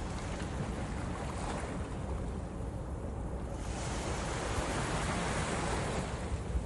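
Harbour water washing and wind buffeting the microphone, with a low rumble throughout; the wash swells about four seconds in and eases near the end.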